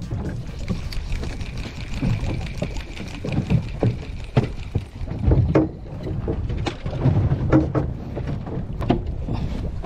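Choppy sea water slapping against the hull of a small fishing boat, with irregular knocks over a low rumble.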